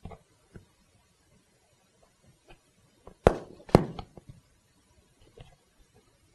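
Two sharp knocks about half a second apart, a little over three seconds in, as the seat back and tools are handled on the workbench, with a few faint taps around them.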